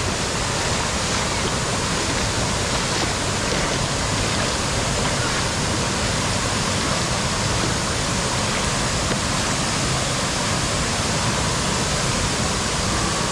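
Steady rush of water from a wave pool's waves and the waterfalls pouring down an artificial volcano.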